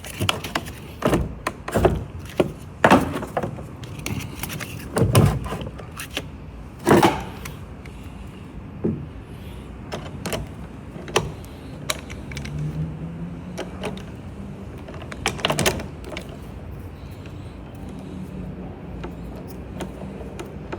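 Irregular clicks and knocks of hand tools, a 10 mm wrench or socket, working on a car battery's fittings. The knocks come thick and loud for the first seven seconds or so, then more sparsely.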